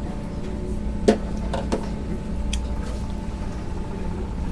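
Steady low hum and rumble of the ferry, with a few light clicks and taps as a sauce bottle and plate are handled at a buffet counter. The sharpest click comes about a second in.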